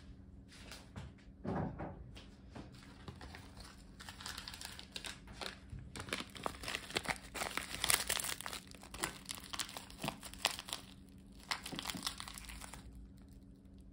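Crisp nori seaweed and a foil wrapping crinkling and crackling in the hands as the seaweed is wrapped around a rice ball, a dense run of crackles that stops abruptly shortly before the end. A soft knock comes about a second and a half in.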